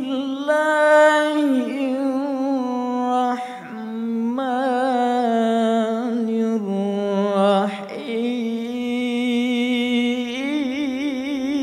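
A solo voice singing wordlessly in long held notes with a slow vibrato, moving from note to note every second or two.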